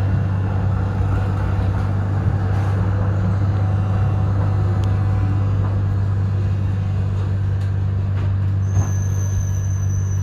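Z class tram running, a steady low hum with an even rumble over it; a thin, high, steady tone comes in near the end.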